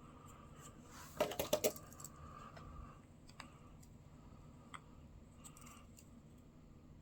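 Hand sanding of a wooden knife handle scale: faint intermittent rubbing strokes, broken about a second in by a brief clatter of four or five sharp clicks, with a few light ticks later.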